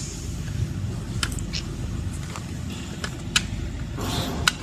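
Scattered sharp clicks and light knocks as the electric scooter's plastic body and wheel are handled and turned over, over a low steady rumble.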